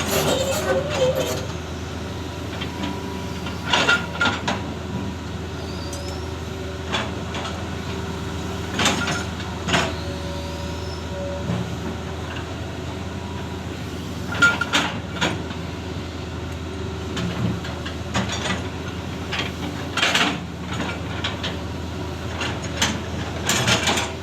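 Excavator's diesel engine running steadily, with sharp knocks and clanks at irregular intervals throughout.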